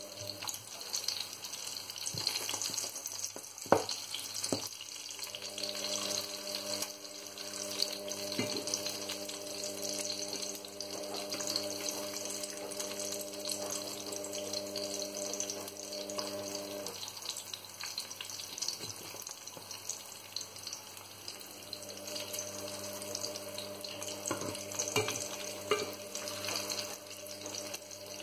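Mackerel fillets sizzling in hot oil in a non-stick frying pan, a steady hiss, with a few sharp clicks of a spatula against the pan as the fish is turned; the loudest click comes about 4 s in. A low hum in the background stops and starts again twice.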